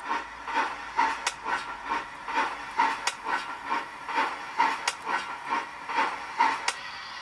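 Digital steam-locomotive chuffing from a model railway sound system for an OO gauge steam tank engine: even, hissing exhaust beats at about three a second that stop near the end.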